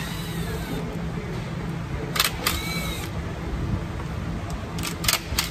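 Cordless ratchet run in short bursts on the transmission's 10 mm bolts, twice close together about two seconds in and twice more near the end, over a steady low hum.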